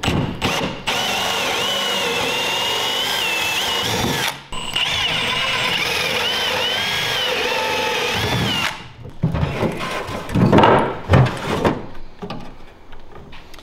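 Milwaukee M18 cordless drill with a hole saw cutting through a pressure-treated pine board: two long runs of steady drilling with a wavering high whine, broken by a short pause about four seconds in. After that the drilling stops and there are irregular knocks and scraping as the board is handled and set against the boat's transom.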